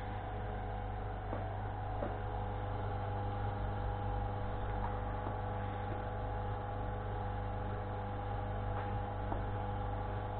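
Small salvaged electric motors, one from a DVD player and one from a cassette player, running steadily with a low hum as they drive a homemade roller that strips insulation from copper wire, with a few faint ticks.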